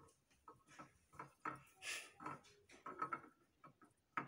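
Faint, irregular light taps and clicks as a glass bowl of cocoa powder is tapped over a blender jar to empty it, with a short soft rustle about two seconds in.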